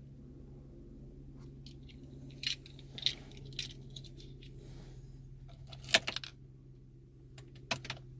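Several short metallic clicks and jingles, the sharpest about six seconds in, over a steady low hum.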